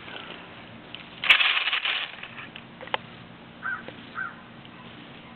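Traxxas T-Maxx RC truck drivetrain making the odd noise: a sharp click about a second in, then a short harsh rasping burst, followed later by a click and two short high chirps. The uploader suspects something binding at the spur gear and the engine or transmission.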